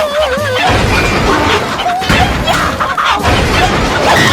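A dense run of cartoon sound effects: crashes, whacks and heavy thuds, with a wobbling whistle-like tone at the start.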